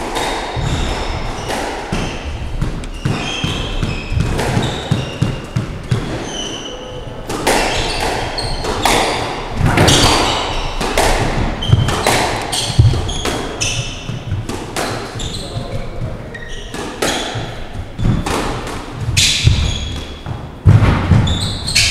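Squash rally: a squash ball struck by rackets and cracking off the court walls, a sharp impact about every second, with many short high squeaks from the players' shoes on the wooden floor.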